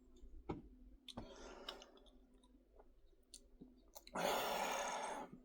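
Quiet clicks and small mouth sounds of someone sipping from a soda can, then a long breathy exhale about four seconds in.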